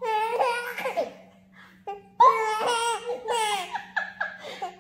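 Baby laughing in high-pitched bouts: a short one of about a second at the start, then a longer run from about two seconds in.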